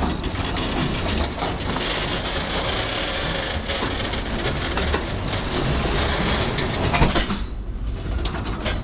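Covered boxcars of a freight train rolling past, their steel wheels clattering and knocking on the rails over a steady rumble.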